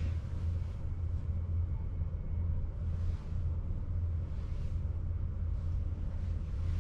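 A steady low hum with a faint hiss over it, with no distinct events.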